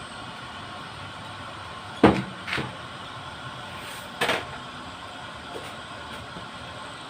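Steady hiss of water heating toward the boil in a repaired electric water heater. A few sharp knocks cut in: a loud one about two seconds in, a smaller one just after, and another about four seconds in.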